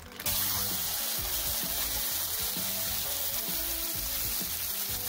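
Cubed raw chicken breast hitting a screaming-hot stainless-steel skillet of olive oil and sizzling as it sears. The sizzle starts suddenly just after the start and holds steady.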